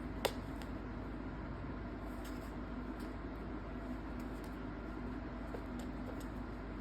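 A steady low room hum, with one sharp click about a quarter second in and a few faint light ticks later on.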